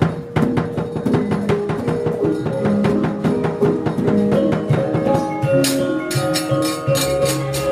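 Javanese gamelan ensemble playing a brisk passage: metallophones ring sustained pitched notes over fast, dense percussive knocks. A bright metallic shimmer joins about five and a half seconds in.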